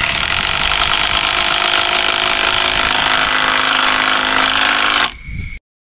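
A power tool's motor running steadily at a constant pitch, cutting off about five seconds in.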